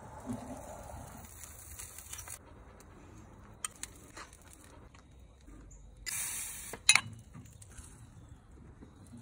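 Handling noise at a barrel charcoal smoker: a high hiss that cuts off after about two seconds, then light clicks and knocks of the grate and skillet. About six seconds in comes a short burst of hiss, ending in one sharp metal clank.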